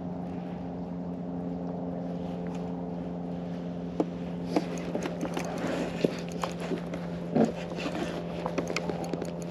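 A steady low hum like a boat motor running, with scattered sharp clicks and knocks from about four seconds in.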